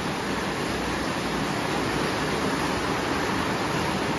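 Marx tinplate O gauge train running on metal track: a steady, even noise of the wheels rolling and the locomotive's motor.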